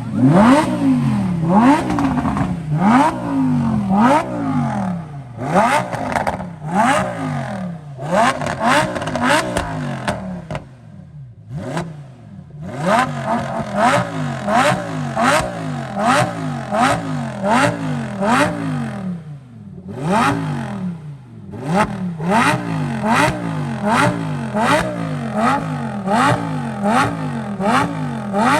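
Lamborghini Gallardo V10 with a Borla aftermarket exhaust being revved repeatedly. Each quick throttle blip rises and falls back, about one a second, and twice drops briefly to idle between runs of blips.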